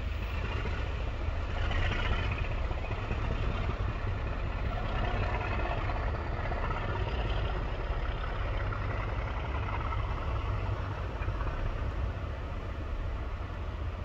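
Class 37 diesel locomotives' English Electric engines heard in the distance as they pull away: a steady deep rumble.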